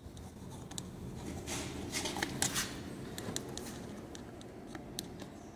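Light scraping and scattered sharp clicks of metal parts being handled on a cylinder head during assembly, over a steady low background hum. The scratchy handling is busiest about two seconds in.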